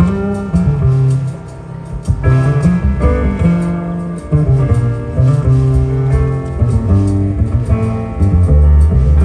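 Instrumental jazz trio music: piano, bass and drums playing together, with low bass notes moving under the piano and steady drum strokes.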